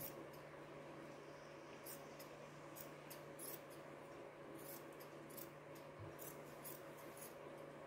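Large metal scissors snipping through a knit cotton T-shirt: faint, crisp snips at an uneven pace, about one or two a second.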